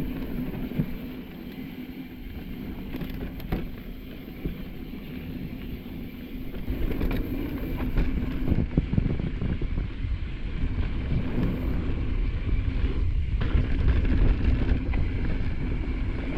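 Bike rolling fast down a dry dirt trail: wind rushing over the microphone, with tyre noise and small rattles and clicks from the ground. A steady low hum runs under it and drops out briefly near the end, and it all grows louder about halfway through.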